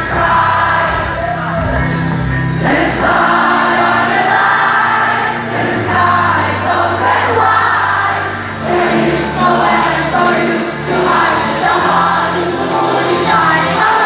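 Live pop band performing a song with singing over sustained bass notes and percussion, recorded from within the audience of a concert hall.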